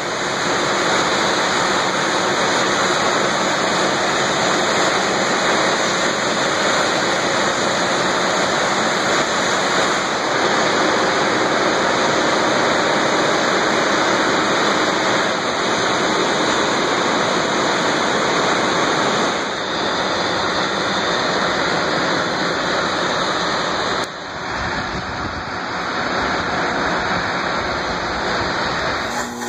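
Loud, steady rushing roar of large industrial machinery, an even noise like a huge fan or blower with no clear beat or pitch, dipping slightly about three-quarters of the way through.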